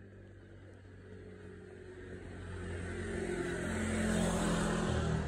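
A motor vehicle passing close by: a low engine hum and road hiss that swell steadily louder over the second half.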